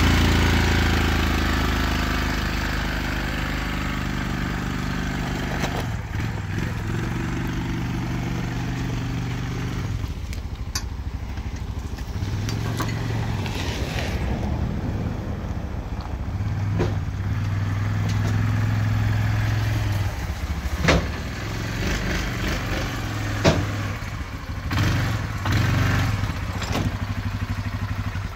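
ATV engine running, its note rising and falling with the throttle as it pulls a trailer, with a few sharp knocks and clatters in the second half.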